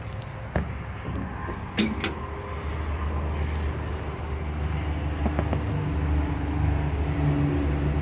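An engine running steadily, its low hum growing gradually louder. About two seconds in, a couple of sharp metal clunks as the baler's hinged top shield over the knotters is swung open.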